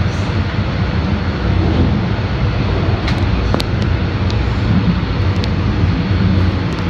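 Subway train running at speed through a tunnel, heard from inside the car: a loud, steady low rumble of wheels on rail and traction motors, with a few brief clicks.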